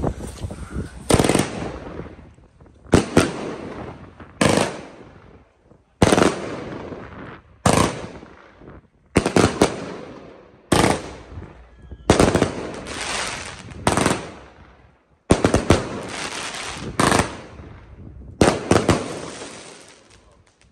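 Surex Damage Control 36-shot fan-shaped firework cake firing: sharp bangs about every one and a half seconds, each followed by a fading crackle of the bursting stars. The volley stops near the end.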